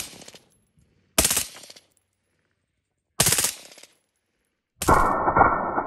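AR-15-style rifle firing three short bursts of automatic fire, each ending in a quick echoing tail, about a second and a half apart. Near the end, a dense, continuous, muffled din takes over.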